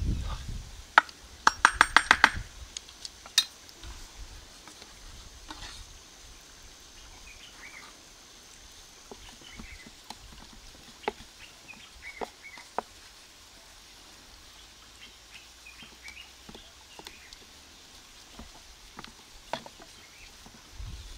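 Wooden spoon knocking and scraping in a wooden bowl while crumbly maize-meal pap is mixed, with a quick run of sharp taps about two seconds in. After that come scattered soft clicks as hands press the mixture together, with faint bird chirps behind.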